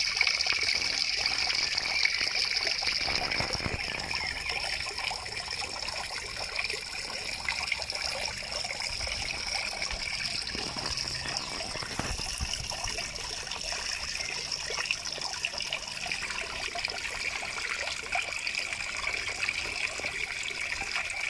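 Small garden waterfall trickling steadily into a goldfish pond.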